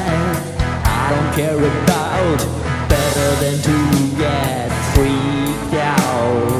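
Rock band music: distorted electric guitar over a steady drum beat, with a man singing the lead vocal.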